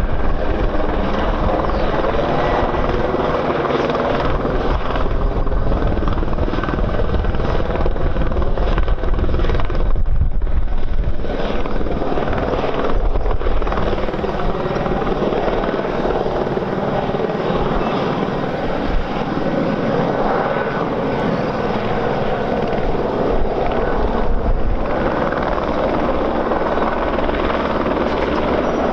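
Airliner jet engines running loud and steady, mixed with wind buffeting the microphone, with a brief dip about ten seconds in.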